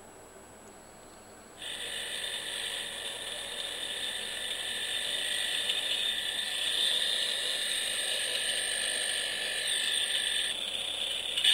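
Small speaker of a recordable greeting-card sound module playing back a recorded track: after about a second and a half of quiet, a steady high buzzing whir starts suddenly and runs on, changing near the end.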